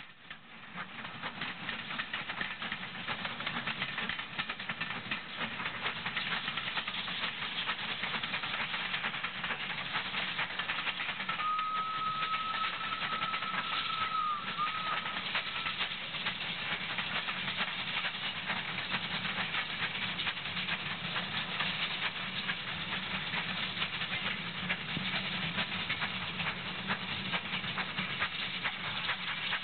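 Haydock Foundry 0-6-0 well tank steam locomotive working a passenger train past, its running noise building over the first few seconds and then holding steady. About twelve seconds in it gives one long whistle lasting about four seconds.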